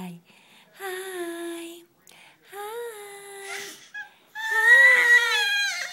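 Seven-month-old baby girl making three drawn-out vocal sounds, the last the loudest and longest.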